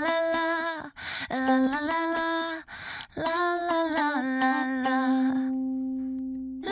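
Intro music: a woman's wordless singing, humming a melody in short sliding phrases and ending on one long held note, over sharp steady clicks.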